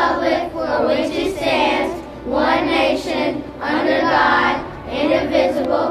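A class of young schoolchildren reciting the Pledge of Allegiance together in unison, in short chanted phrases with brief pauses between them.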